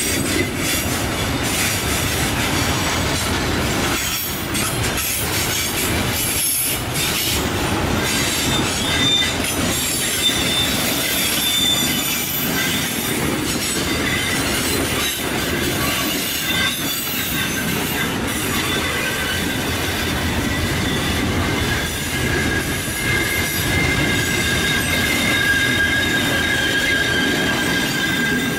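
Long freight train of boxcars and hopper wagons rolling past, a continuous rumble of steel wheels on rail with scattered clicks. A high, steady wheel squeal comes through more strongly near the end.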